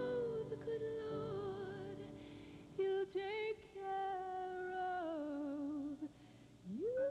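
A woman singing a slow ballad in long held notes with vibrato, each phrase stepping down in pitch. She breaks off briefly about six seconds in, then slides up into a new sustained note near the end.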